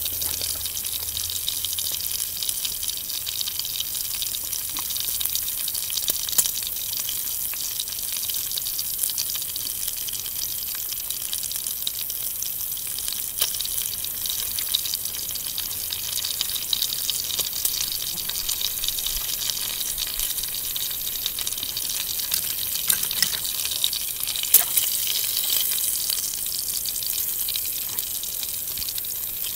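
Bacon pieces sizzling in a small skillet over a campfire: a steady high hiss with scattered pops.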